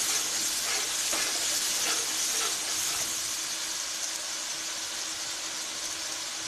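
Chopped tomato and green-chilli masala sizzling steadily in hot oil in an aluminium pan, with a few light scrapes of a spatula in the first couple of seconds.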